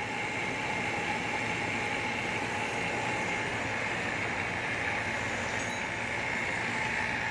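Steady hum and hiss of running machinery, with a faint steady whine over it.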